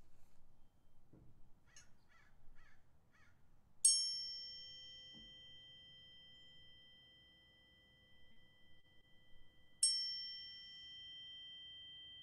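Tuning fork struck twice, about six seconds apart. Each strike is a bright metallic ding, followed by a few steady pure tones that ring on and fade slowly. A few faint high chirps come before the first strike.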